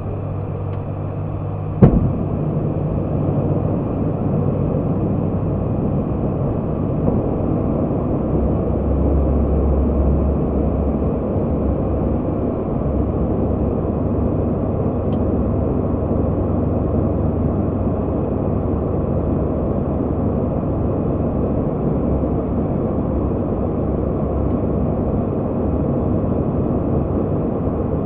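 Steady cockpit noise of an ATR 72-600 in flight: the low drone of its two Pratt & Whitney PW127 turboprop engines and propellers with airflow over the nose. A single sharp click about two seconds in.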